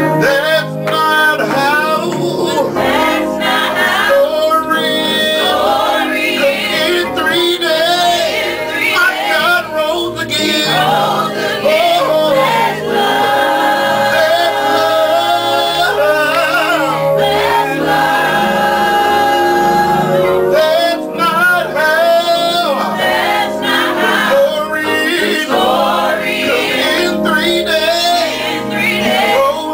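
Gospel worship music: a choir of men and women singing continuously.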